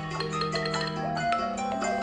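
A smartphone alarm or timer ringtone playing: a melodic tune of ringing, marimba-like mallet notes over held bass notes.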